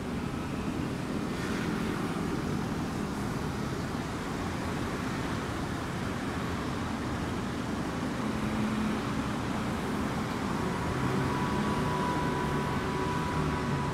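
Steady road traffic noise of cars and other vehicles running past on a city street, with a faint thin whine coming in over the last few seconds.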